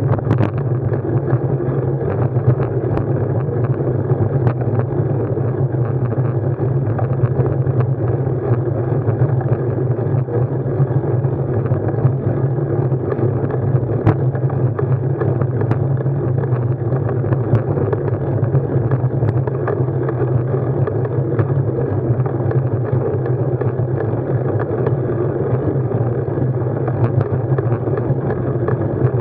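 Steady, loud riding noise, mainly wind and vibration, picked up muffled by a ride-mounted Garmin Virb Elite action camera. Frequent small rattling clicks run through it.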